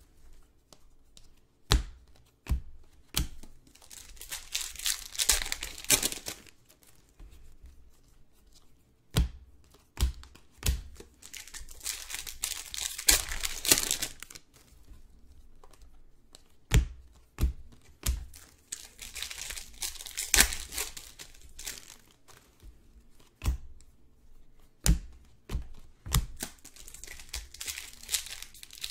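Trading card packs being torn open by hand, their plastic wrappers tearing and crinkling in repeated bursts, with sharp knocks of card handling in between.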